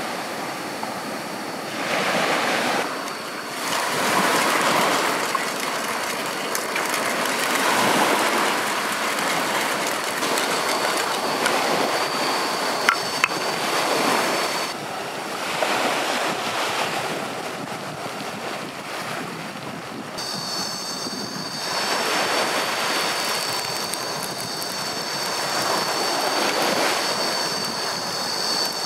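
Sea waves breaking and washing up on the shore, the surf swelling and falling every few seconds. A thin, steady high-pitched whine comes in about a third of the way through and grows fuller, with several tones, from about two-thirds in.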